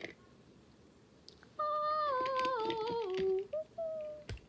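A girl humming a short tune that steps down note by note, followed by two brief higher hums. A soft thump comes just before the end.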